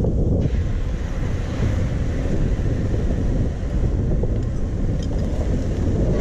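Beaten egg poured onto a hot 36-inch Blackstone griddle, sizzling steadily from about half a second in. A heavy wind rumble on the microphone runs underneath and is the loudest sound.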